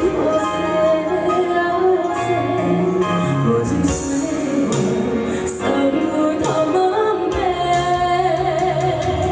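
A woman singing a song solo over instrumental accompaniment, holding long notes, with the music running on without a break.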